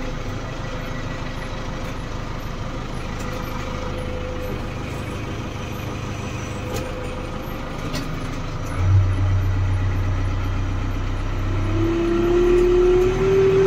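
JCB 3DX backhoe loader's diesel engine running, heard from inside the cab. About nine seconds in the engine note jumps louder and deeper, and near the end a steady whine comes in, rising slightly, as the engine works harder.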